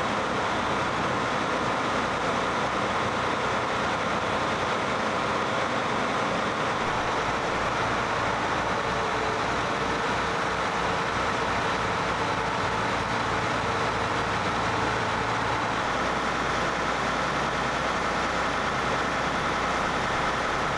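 John Deere 9620R four-wheel-drive tractor's diesel engine idling steadily.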